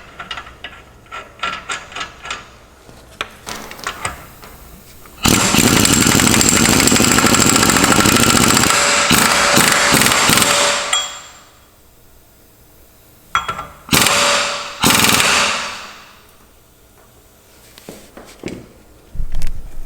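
Impact wrench running down and hammering the rear axle nut onto the hub: one long burst lasting about five seconds, starting about five seconds in, then two short bursts near fourteen and fifteen seconds. Faint metal clicks and taps come before the first burst.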